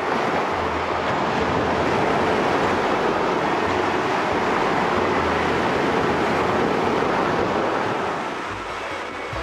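Small lake waves washing in over a pebble beach: a steady rush of water over the stones that eases a little near the end.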